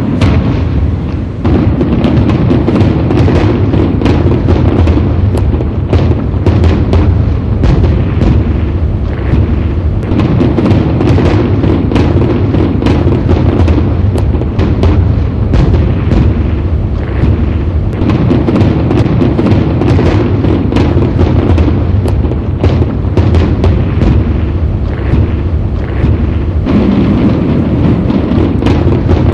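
New Year fireworks going off in a dense, unbroken barrage: a steady stream of overlapping bangs and cracks over a constant heavy rumble.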